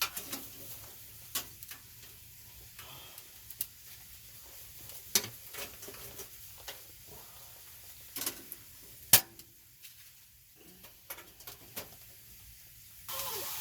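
Food frying in a pan: a faint sizzle with scattered clicks and taps of utensils against the pan. The sizzle turns suddenly louder near the end.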